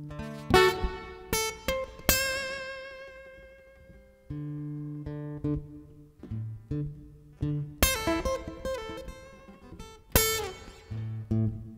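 Guitar playing an instrumental passage: a handful of strummed chords that ring out and fade, with plucked single notes and low bass notes held in between.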